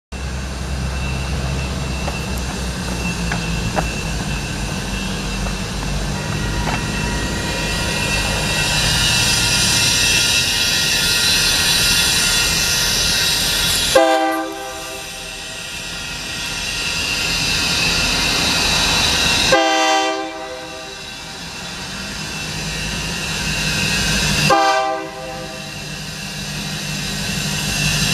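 Union Pacific local freight train approaching, its diesel locomotive running with a steady low rumble. About halfway through, the locomotive's air horn sounds three times a few seconds apart, a chord of several tones, for the trail grade crossing.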